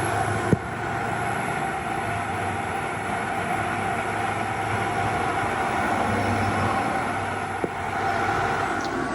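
Outside condenser fan of a Cruise N Comfort van air conditioner running close up: a steady, calm white-noise whoosh over a low hum, with two faint ticks.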